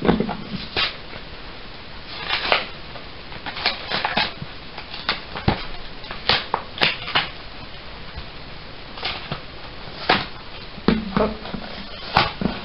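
Cardboard and plastic packaging of a Pokémon trading card box being torn open and handled: irregular crinkles, rips and clicks.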